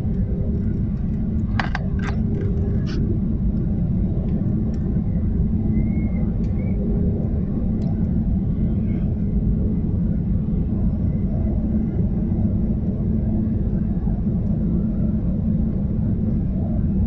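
Jet airliner cabin noise at a window seat in flight: a steady low rumble of the engines and rushing air with a steady hum. A few short clicks about two seconds in.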